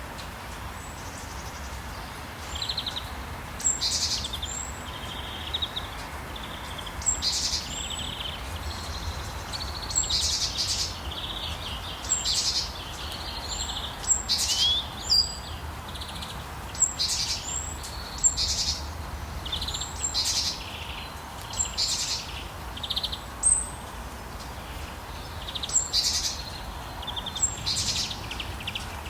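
Birds singing, with short high chirps and calls repeating every second or two, over a steady hiss of falling rain.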